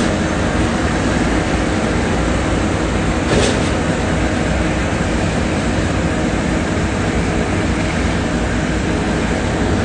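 Concrete mixer truck's diesel engine running steadily at a standstill, a constant low rumble. A brief sharp noise cuts in about three and a half seconds in.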